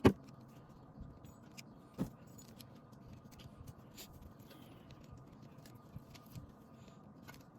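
Small metallic clicks and scrapes of multitool pliers picking tangled hair out of a Roomba brush roller, with a sharp click right at the start and another about two seconds in.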